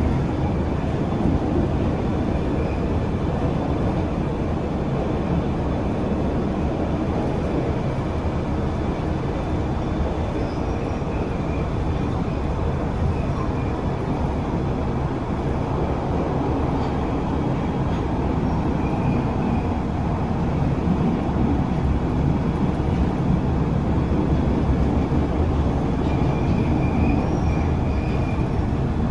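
London Underground Bakerloo line train running, a steady rumble of wheels and motors on the track with faint high-pitched squeals now and then.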